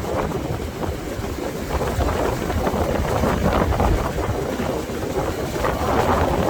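Strong wind buffeting the microphone in a steady, loud rumble, with ocean surf washing beneath it.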